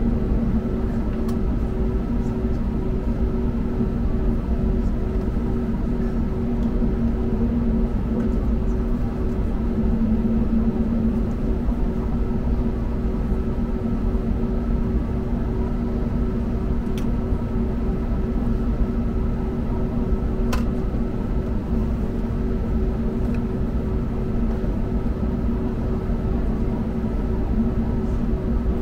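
Steady engine and airflow noise inside the cabin of an Airbus A321neo airliner: a constant rumble with a steady hum that neither rises nor falls.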